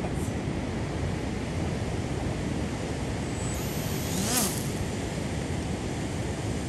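Ocean surf breaking on the beach, a steady wash of waves, with wind buffeting the microphone.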